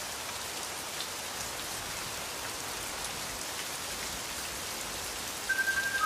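Steady rain falling, an even hiss dotted with faint drop ticks. A held high tone comes in near the end.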